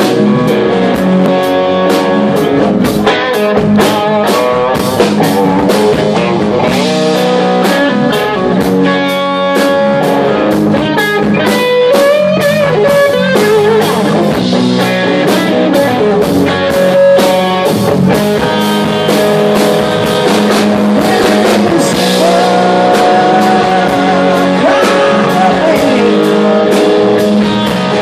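A live rock band playing loudly: electric guitar over drums keeping a steady beat.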